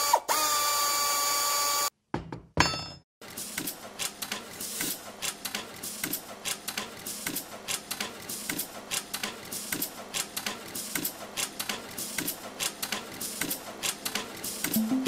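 A steady drill-like whine for about the first two seconds. After a brief gap, a CNC wire-bending machine with radial tool slides clicks and clacks rapidly and irregularly as it forms wire into staples.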